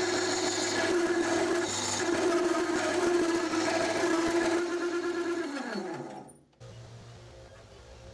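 Metal lathe parting off a part, with the parting tool chattering in the cut as a steady pitched squeal over the machine's running. About five and a half seconds in, the pitch drops away as the lathe spins down, leaving only a faint low hum.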